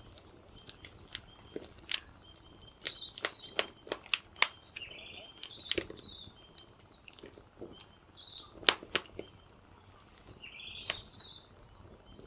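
Small twig-and-kindling campfire crackling, with sharp, irregular pops and snaps, and birds chirping in the background.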